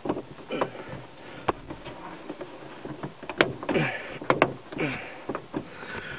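Plastic overhead console being pushed by hand into a truck's headliner: a string of irregular sharp clicks and knocks as it seats on its retaining clips, with brief rubbing and scraping of plastic in between.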